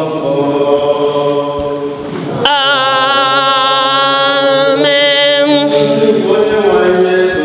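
Voices singing a cappella at a Catholic Mass, holding long notes. About two and a half seconds in, one strong voice comes to the front and holds a single wavering note for about three seconds before the other voices return.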